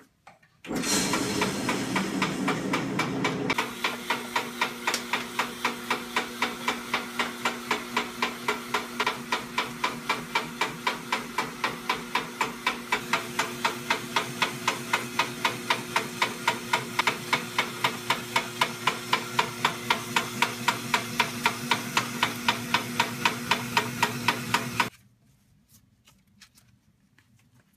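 Electric snow cone ice shaver running: its motor hums steadily while the blade shaves ice into a cup with a rhythmic scraping clatter, about three strokes a second. It starts about a second in and cuts off suddenly a few seconds before the end.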